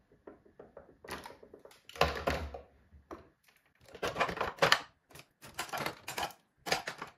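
Cosmetic bottles, compacts and brushes being picked up, shifted and set down on a vanity table: an irregular run of clicks, taps and light clatters.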